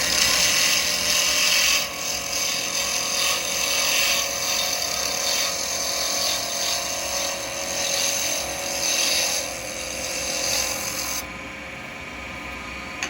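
Round carbide chisel cutting into a square acrylic pen blank spinning on a lathe, a loud rough scraping hiss as the corners are taken off, over the lathe's steady hum. The cutting stops about eleven seconds in, leaving the lathe running.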